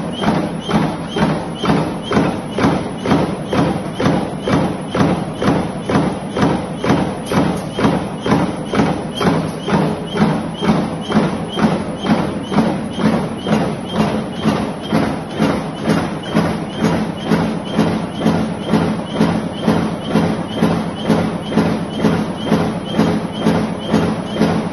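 Mechanical power press with a gripper feeder running continuously, punching steel strip with an even thump about twice a second over a steady machine hum.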